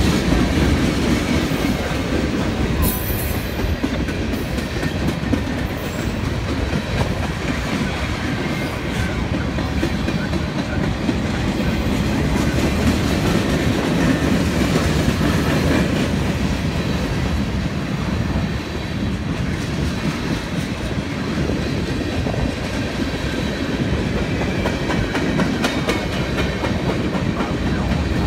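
Freight train cars rolling past close by at a steady speed: a continuous rumble of steel wheels on the rails with clacking from the wheels and couplings.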